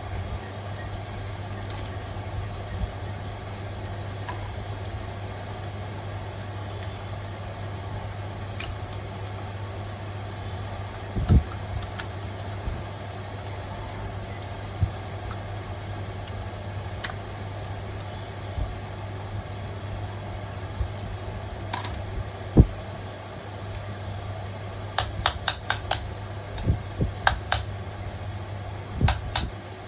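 Steady low hum of a small electric motor running, with scattered sharp clicks and knocks from handling work, several in quick succession near the end.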